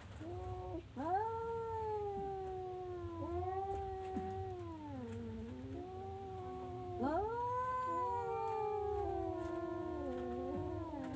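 Domestic cat yowling: a short call, then two long wavering calls of about four seconds each, the second starting about seven seconds in.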